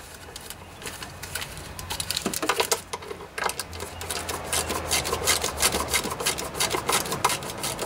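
Ratchet wrench clicking as a bolt on the engine cover is loosened: a few scattered clicks at first, then a fast, even run of clicks from about halfway in.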